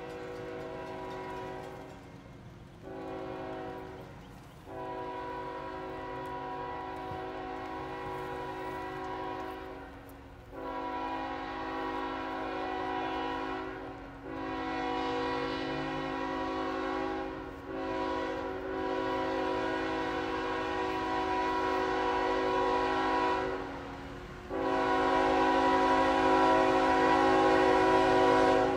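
Air horn of the locomotive leading a coal train, sounding a chord of several steady tones in a series of long blasts with brief breaks, growing louder toward the end as the train approaches.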